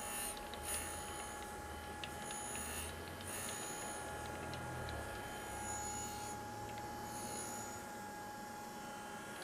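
Surface grinder running: a steady whine from the wheel spindle and a low hum from the table traversing back and forth. A hiss comes and goes as the grinding wheel makes light passes across a steel lapping plate held on the magnetic chuck, taking off its high spots.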